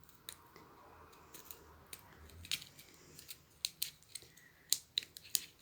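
Light clicks and taps from hands handling photocards and their plastic and paper packaging, the clicks coming more often in the second half.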